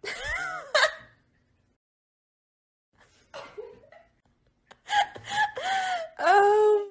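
A person laughing and giggling in a high voice, in short bursts. One burst comes at the start, then a pause of about two seconds, then louder, longer laughs over the last two seconds, the last one held on a steady note.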